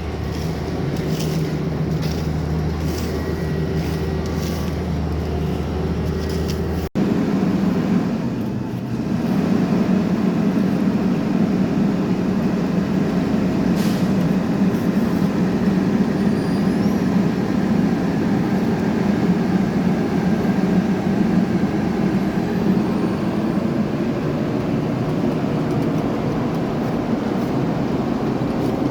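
Heavy diesel road-construction machinery running steadily. About seven seconds in, the sound cuts abruptly to a louder engine that runs on evenly.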